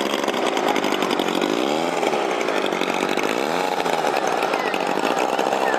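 Engine of a large radio-controlled model biplane running as it taxis, a steady buzz that rises and falls in pitch twice.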